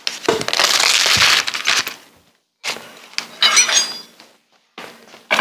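Dishes being handled on a kitchen counter: a ceramic plate and a wooden board scraping and knocking, with a few ringing clinks. It comes in two rustling, scraping stretches of about two seconds each, with a knock near the end.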